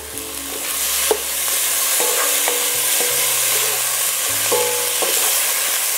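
Chopped tomatoes sizzling in hot ghee with spices in an enamelled cast-iron pot, stirred with a wooden spatula, the juice the tomatoes release spitting in the fat. The sizzle swells about a second in and stays loud.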